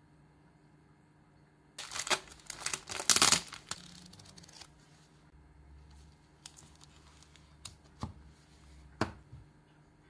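Plastic packaging crinkling and rustling loudly for about two seconds as it is handled, then quieter handling, with two light knocks near the end as items are set down on a wooden table.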